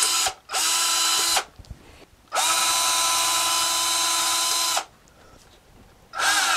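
Small cordless drill boring into a plastic charger case in short runs. The motor whines up to speed, holds steady and stops: it cuts out shortly after the start, runs about a second, then about two and a half seconds, and starts again near the end.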